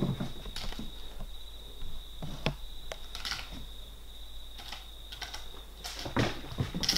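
A kitten's claws catching and scraping on a sisal-rope scratching post and a fabric blanket: scattered light clicks and scratches that come thicker near the end.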